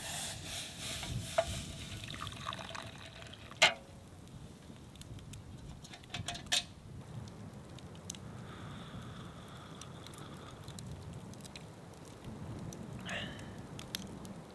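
Hot drink poured from a small metal pot into a wooden cup for about three seconds, followed by two sharp knocks a few seconds apart. Small campfire crackles throughout.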